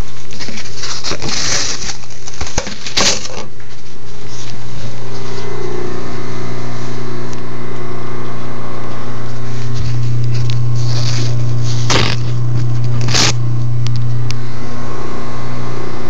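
Microwave oven running: a steady low hum that swells for a few seconds past the middle. A few short knocks and scrapes come through near the start and twice near the end.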